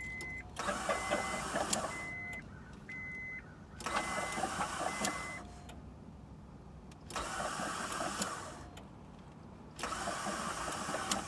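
Starter cranking the 2003 Acura MDX's V6 in four short bursts of about a second and a half each. The engine turns over without firing, freed after being seized by soaking its cylinders in transmission fluid. A repeated beeping tone sounds on and off during the first half.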